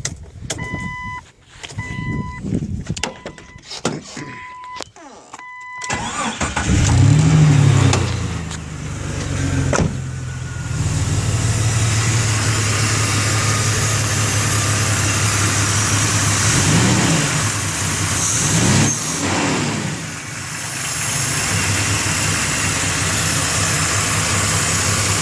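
Warning chime beeping several times, then a Jeep Cherokee XJ's 4.0 L straight-six cranks and starts at about six seconds, revs briefly and settles to idle, with two short throttle blips later on. A steady hiss runs under the idle, which the owner takes for a vacuum leak.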